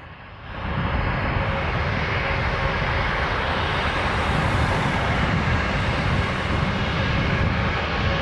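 Airbus A320-232's twin IAE V2500 turbofan engines at takeoff power: the sound rises sharply about half a second in, then holds as a steady, loud jet noise with a deep rumble underneath.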